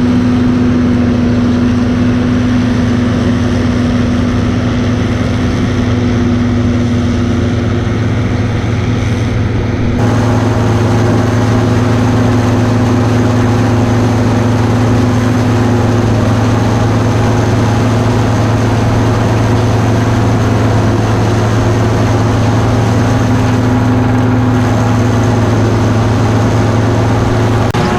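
Heavy farm harvesting machinery's engine running steadily under load during corn silage harvest, with a constant low hum; the sound shifts suddenly about ten seconds in, then runs steady again.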